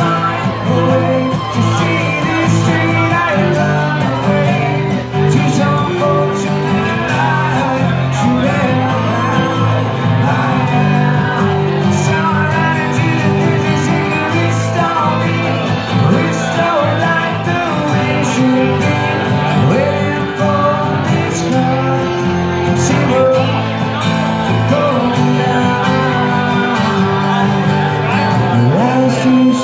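A live band playing a song, a singer's voice over guitar, with steady low bass notes underneath.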